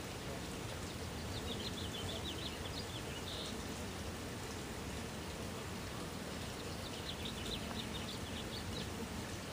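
A small bird singing two quick phrases of rapid high notes, about a second in and again about seven seconds in, over a steady outdoor hiss.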